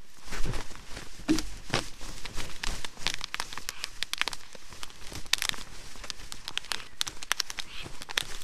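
Irregular crackling and snapping of a stick nest, with feathers brushing, as a pair of black storks mate on it, the male flapping his wings on the female's back.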